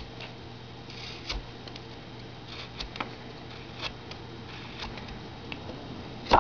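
V-tool cutting into a wooden block in little strokes: faint scraping cuts with small clicks about once a second, and a sharper click near the end.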